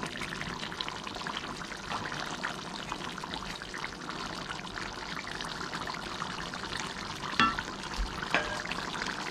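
Curry goat simmering in a pot, its thick sauce bubbling and crackling steadily as it is stirred with a wooden spoon. Two sharp knocks about a second apart near the end.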